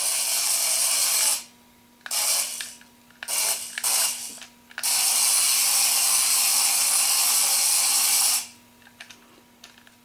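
The tiny electric motor and gears of an Adventure Force Nano Racer RC Jeep Gladiator whirring at a high pitch as it drives. It comes in throttle bursts: on for about a second and a half, several short blips, then a long steady run of about three and a half seconds before it stops near the end.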